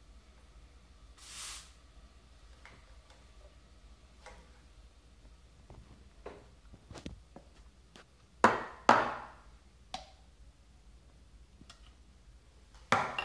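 Stainless steel milk pitchers handled during milk frothing: two pairs of sharp metallic knocks with a short ring, one about two-thirds of the way in and another near the end, with light clinks of metal between them. A short hiss comes about a second and a half in.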